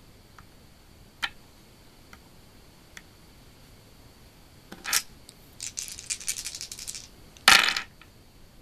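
Four small plastic dice gathered with a clatter, rattled in the hand for about a second and a half, then thrown onto a wooden tabletop with a loud clatter near the end. A single light tap comes about a second in.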